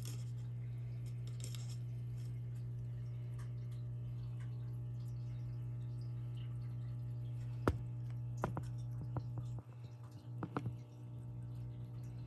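Steady low electrical hum, with a single sharp click and then a short cluster of clicks and light taps about two-thirds of the way through.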